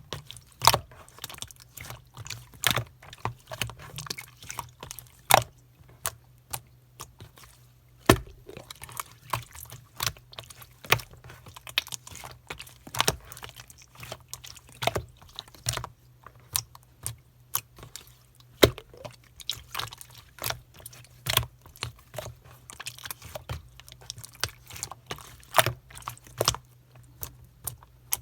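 Slime being squeezed and pressed by hand, giving an irregular run of wet clicks and pops, several a second, over a faint low hum.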